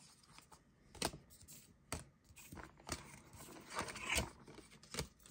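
Paper trading cards being slid one at a time off the front of a small stack held in the hand: about five short, sharp card snaps roughly a second apart, with soft paper rustling between them.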